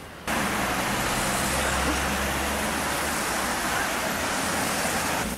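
City street traffic at a pedestrian crossing: a steady wash of road noise with the low hum of vehicle engines. It starts abruptly just after the start and cuts off shortly before the end.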